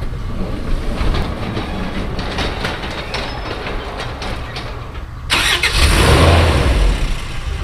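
Light clicks and knocks over a low rumble. Then, about five seconds in, the 1981 Toyota Hilux pickup's engine is started and runs loudly.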